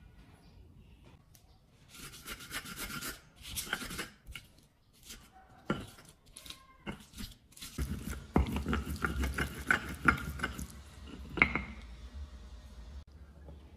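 Stone pestle grinding and scraping chilies, garlic, salt and sugar against a stone mortar (ulekan in a cobek), making sambal. Repeated rubbing strokes that turn heavier and fuller about halfway through as the mixture becomes a paste.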